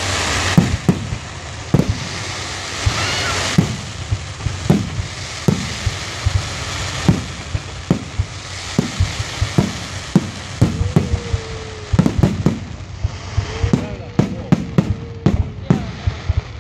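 Fireworks display: a rapid, irregular run of sharp bangs from aerial shells bursting, with stretches of loud hissing about a second in and again around three seconds in.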